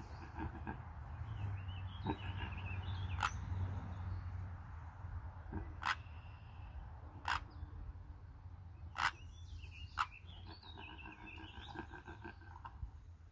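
Outdoor ambience with songbirds chirping in two spells, a steady low rumble underneath, and five sharp clicks spread through it.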